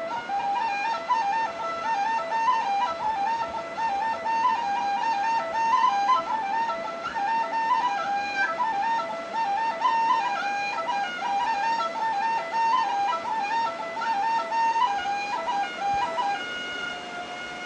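Background music: a high melody of quick stepping notes, repeating a short phrase every couple of seconds.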